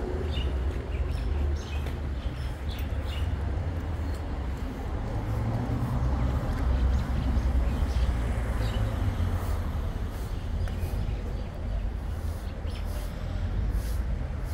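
Outdoor street ambience: a steady low rumble with faint, scattered high chirps.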